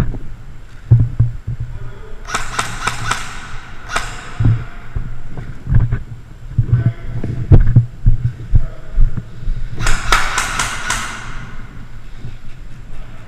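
Two short bursts of airsoft rifle fire, rapid sharp shots about six to seven a second, one about two seconds in and one about ten seconds in, with irregular low thumps between them.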